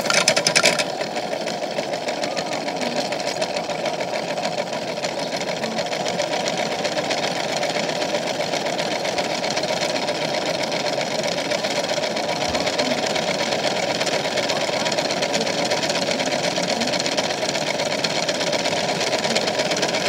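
Toy washing machine's small electric motor running steadily while a rock tumbles and rattles in its plastic drum, with a louder clatter in the first second.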